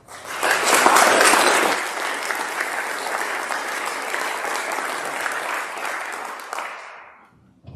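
Congregation applauding: clapping rises sharply, is loudest about a second in, holds steady, then dies away near the end.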